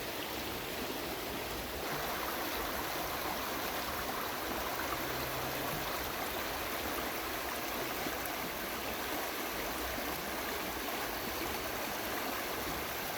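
River water flowing, a steady rush that gets a little louder about two seconds in.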